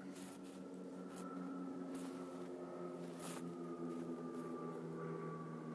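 A steady machine hum made of several low tones, with a fainter high whine that drifts slightly lower. Two brief soft hisses come about two and three seconds in.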